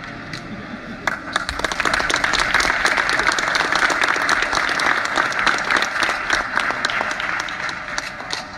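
A crowd applauding, starting suddenly about a second in and thinning out near the end.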